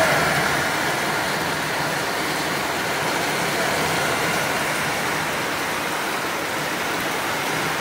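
Heavy downpour: steady, hard rain falling on trees and puddled ground.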